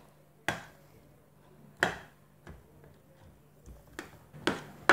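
Metal spoon knocking against a stainless steel bowl while mashing boiled potatoes: about six sharp, irregular knocks, coming closer together near the end.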